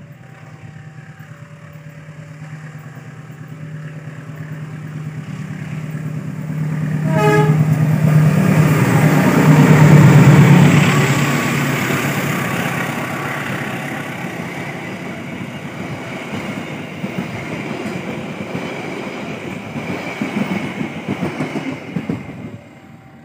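A diesel locomotive hauling a passenger train approaches and passes close by, sounding its horn, over a level-crossing warning alarm chiming in two alternating notes. The engine drone builds to its loudest about ten seconds in. Then the carriages' wheels clatter over the rail joints and slowly fade.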